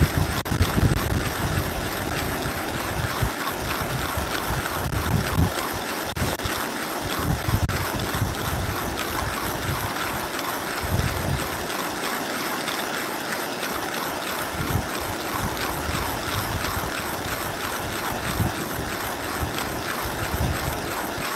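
The Millwright hand coffee grinder being cranked continuously, its burrs crunching through coffee beans, hard work at this grind. Wind buffets the microphone with low rumbling gusts, strongest in the first half.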